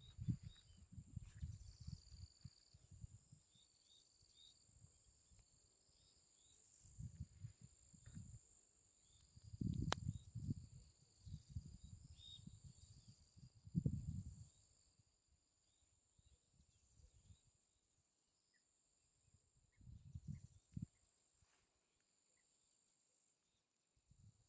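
Faint, steady high-pitched trilling of insects, with scattered short high chirps over it. Low rumbles come and go on the microphone, loudest about ten and fourteen seconds in.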